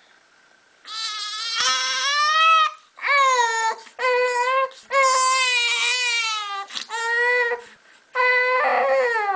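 Baby crying in a series of about six long wails, beginning about a second in, while the belly is pressed by hand to push an umbilical hernia back in.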